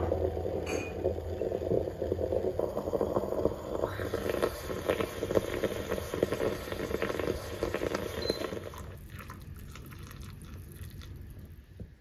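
Bialetti moka pot brewing, coffee gurgling up into the upper chamber with a dense crackle of small pops. The gurgling fades out about nine seconds in.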